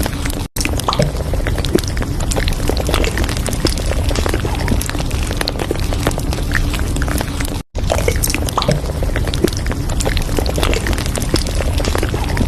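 Café ambience: a steady background of room noise and murmur with frequent small clinks, cutting out briefly twice, about half a second in and near the middle.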